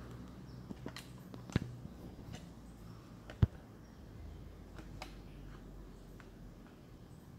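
Close handling noise as fingers press a crumbly oat and nut bar into a plastic tub of cream: scattered light clicks and taps, with two sharper clicks about one and a half and three and a half seconds in, over a low steady hum.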